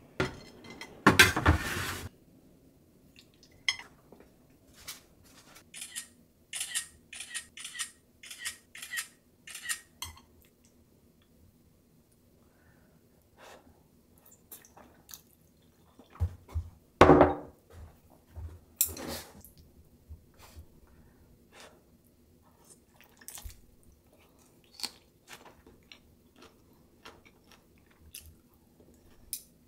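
Eating at a table: chopsticks and a wooden spoon clicking and scraping against ceramic plates, with chewing. There is a loud clatter about a second in, a quick run of light clicks a few seconds later, and another loud knock about seventeen seconds in.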